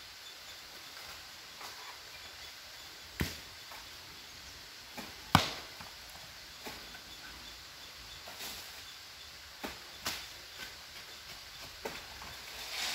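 Sharp knocks or cracks, about a dozen at irregular intervals, the loudest about five seconds in, over a faint outdoor background.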